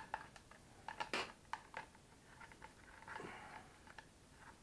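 Light handling noise: faint clicks and rustles as a red perspex RC car stand is turned over and its wire wrapped up, with a few sharper clicks a little over a second in.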